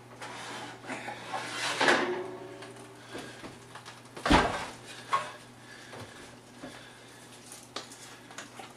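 Kitchen clatter of a metal pan and utensils being handled, with one sharp knock about four seconds in and a few lighter clicks after.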